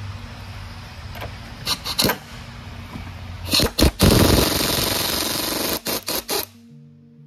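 Pneumatic impact wrench hammering a bearing puller's forcing screw: a few short bursts, then a run of about two seconds, then several quick blips before it stops suddenly.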